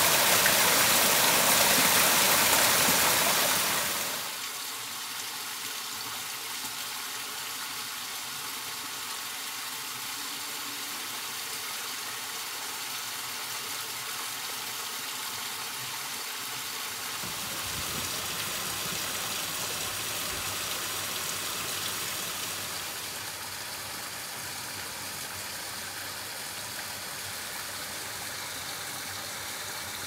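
Mountain valley stream, a steady rush of flowing water, louder for the first four seconds and then quieter.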